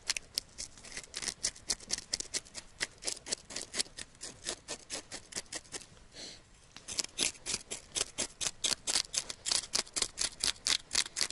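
Fresh perch being scaled by hand: quick, sharp scraping strokes, several a second, with a short pause about six seconds in.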